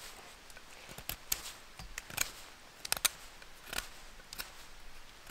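A bushcraft knife whittling a point onto a wooden stick: a series of short, sharp scraping cuts at an uneven pace as slivers are shaved off.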